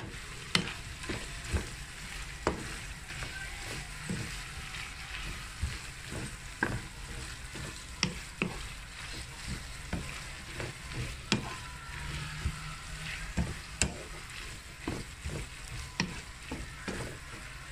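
Ground beef, green beans and basil leaves sizzling in a nonstick frying pan while being stir-fried with a wooden spatula, which knocks and scrapes against the pan many times at an irregular pace.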